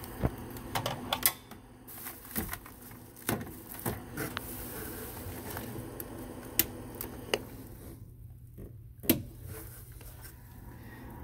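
Irregular clicks and knocks of hands working the power connection behind a BTECH RPT50 repeater to switch it off for a reboot, with a sharp, louder click about nine seconds in. A steady low hum runs underneath.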